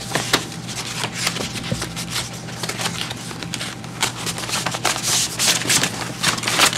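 Paper rustling and shuffling as bid papers are handled, a run of quick crackles and rubs that grows denser in the last few seconds.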